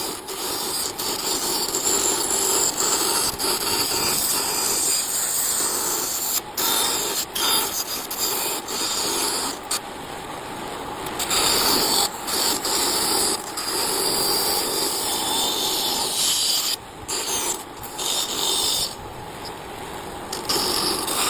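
Wood being cut or shaped with a tool, a continuous rasping, scraping noise broken by several short pauses.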